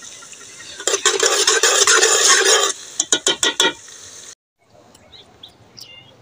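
Metal ladle stirring chopped onions frying in oil in an open pressure cooker, scraping against the pot for about two seconds, then about five quick knocks. After a cut, faint bird chirps near the end.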